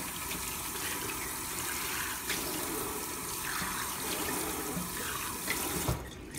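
Kitchen faucet running into a stainless steel sink as hands are rinsed under the stream. The water stops about six seconds in.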